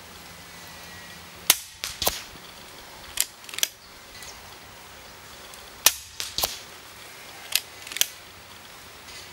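Daystate Red Wolf HP 5.5 mm PCP air rifle firing four shots about two seconds apart. Each sharp report is followed about half a second later by a second sharp crack.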